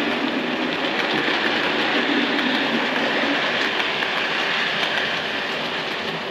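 OO gauge model railway coaches rolling along the track, a steady rushing rumble of metal wheels on the rails that eases off a little as the last coach passes.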